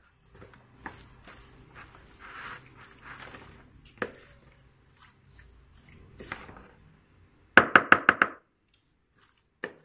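Cooked penne being tossed and mixed by hand in a plastic bowl, a soft wet rustling with a few single clicks. Near the end comes a quick run of about six sharp taps, then one more knock.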